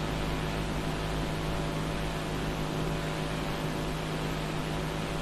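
Steady low hum with a constant hiss, unchanging throughout and with no distinct events.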